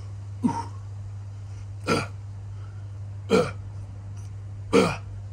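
A man grunting with effort on each barbell rep: four short grunts falling in pitch, about a second and a half apart, over a steady low hum.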